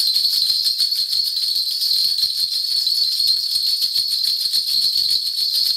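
A Korean shaman's cluster of spirit bells shaken rapidly and without a break, a dense steady jingling, as part of a spirit divination reading.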